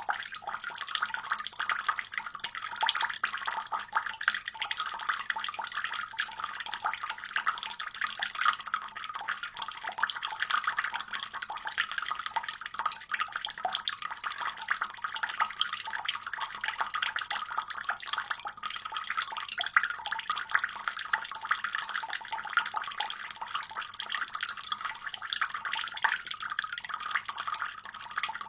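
Water tap running steadily, a continuous splashing stream of water falling into a basin.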